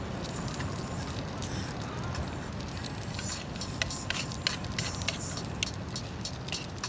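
Wood campfire crackling, with sharp pops and snaps that come thicker in the second half, over a steady low rumble.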